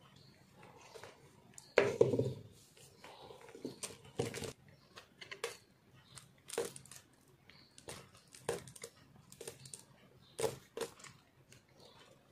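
Box-cutter blade carving through a hand-held block of re-molded, pressed soap chunks: irregular crunchy cuts and scrapes, with soap crumbling off. The loudest crunch comes about two seconds in, and further cuts follow every half second to a second.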